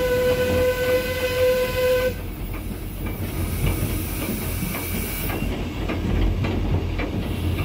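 Andrew Barclay 0-6-0 saddle tank steam locomotive heard from its footplate: its steam whistle holds one steady note that stops about two seconds in. After that the engine runs on with a low running noise and frequent clicks of the wheels over the rails.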